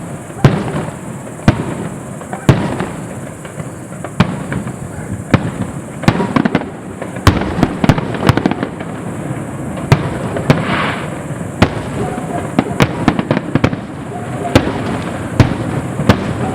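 Aerial fireworks bursting in a steady barrage of sharp bangs, roughly one a second, with denser rapid clusters in the middle and a brief crackling hiss about ten seconds in.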